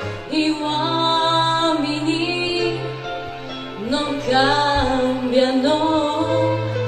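A woman singing a melodic line into a microphone over instrumental accompaniment with a sustained bass.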